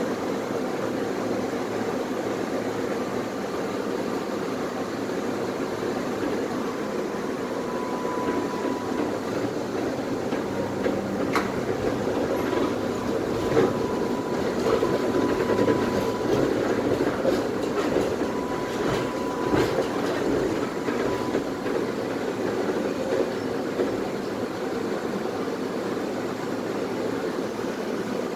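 Tatra T3SU tram running along the track, heard from aboard: a steady rumble of wheels and running gear, with a thin whine through the middle and a few sharp clacks over the rails.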